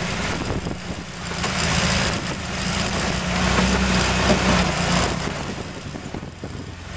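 Ford Bronco II driving slowly over a rough trail: the engine hums steadily at a low pitch under a rushing, rattling noise that swells and fades.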